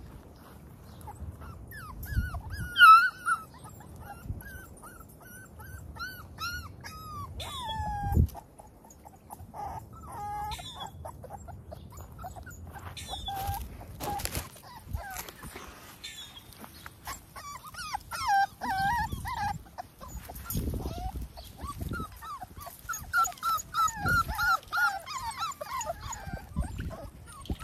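Six-week-old XL pitbull puppies whining and whimpering in short, high, bending calls, with a quick run of whimpers near the end. Occasional dull thumps sound between the calls.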